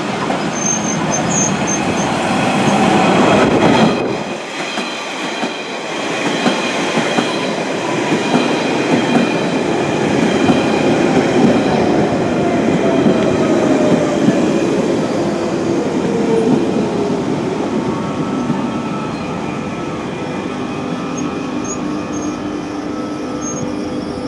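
London Underground 1992 tube stock trains running through an open-air platform, with rail and wheel noise that is loudest in the first few seconds. A train then runs in alongside the platform, its motor whine falling steadily in pitch as it slows.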